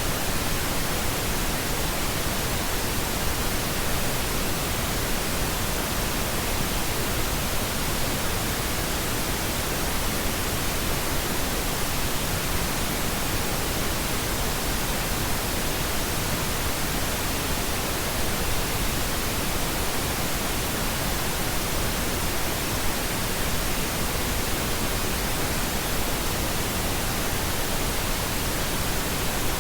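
Steady pink noise: an even, unbroken hiss spread across all pitches, with no change in level.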